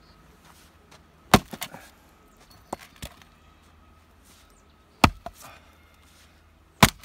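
Axe chopping firewood: three sharp, loud strikes about 1.4, 5 and 7 seconds in, each followed by a brief clatter of smaller knocks, with two lighter knocks around 3 seconds.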